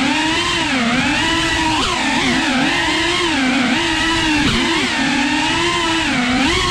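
FPV quadcopter's electric motors and propellers whining, the pitch rising and falling continually with throttle changes over a rushing noise of prop wash.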